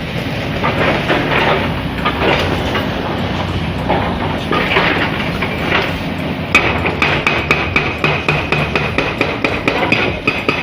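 Demolition hammering on concrete and steel, with irregular knocks and clatter at first. About six and a half seconds in it turns into rapid, even metallic blows, about five a second, with a ringing tone.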